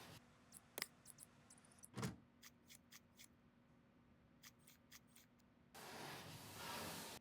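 Faint handling noises of computer parts being fitted: scattered small clicks and ticks, a soft knock about two seconds in, and a rustle for the last second and a half.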